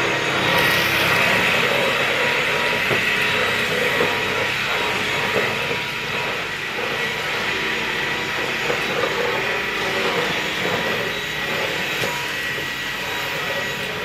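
Cordless stick vacuum cleaner running steadily, its motor whine holding one pitch.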